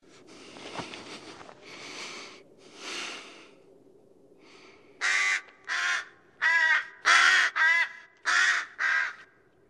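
A crow cawing: seven loud, harsh caws in quick succession, starting about five seconds in. Before them come three soft swells of noise.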